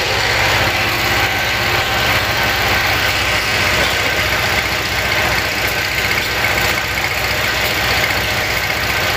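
An engine idling steadily, with a fast even low pulse.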